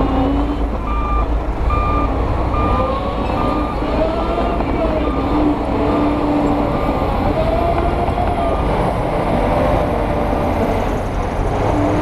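Heavy diesel engine running with its pitch rising and falling as a dump truck tips its bed of stone. Over it, a reversing alarm beeps about once a second through the first half.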